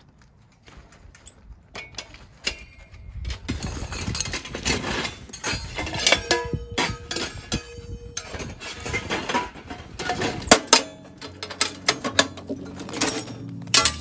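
Repeated clinks, clicks and knocks of hard objects being handled. Soft background music comes in about eleven seconds in.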